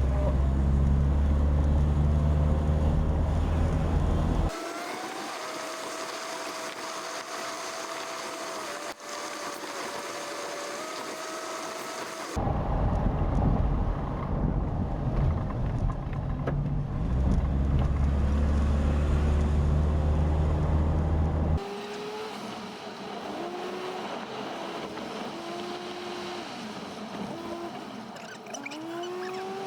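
A car driving, in edited stretches. Loud deep road and engine rumble alternates with quieter stretches carrying a whine that slowly rises and falls in pitch, and the sound changes abruptly at each cut.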